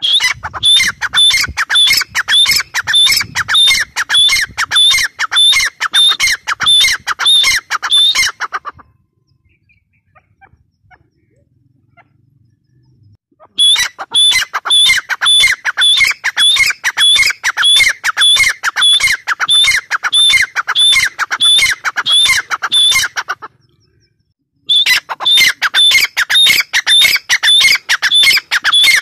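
Grey francolin calling: a loud, fast series of short, high, harsh descending notes, about three to four a second. The series breaks off for about five seconds after roughly nine seconds, resumes, and pauses again for about a second near the end.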